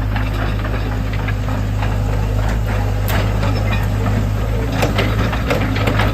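Hitachi ZX70 excavator's diesel engine running steadily, with irregular clicks and knocks over the low engine hum.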